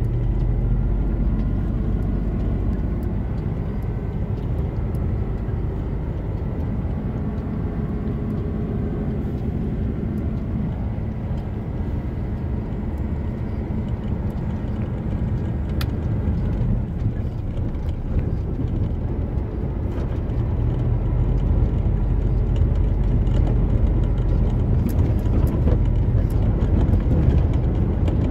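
Cab interior of a Scania G420 truck on the move over a gravel road: the six-cylinder diesel engine's steady drone under the rumble of tyres on gravel, with occasional clicks and rattles. It grows a little louder about twenty seconds in.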